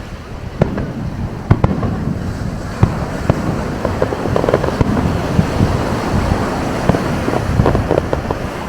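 Fireworks going off: a run of sharp bangs, with denser crackling bursts about halfway through and again near the end, over a steady wash of surf.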